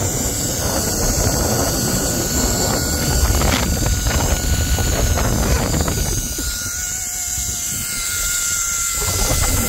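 Wind rushing over the microphone with a heavy low rumble as a rider speeds down a zip line, with a faint steady whine from the trolley's pulleys running along the steel cable.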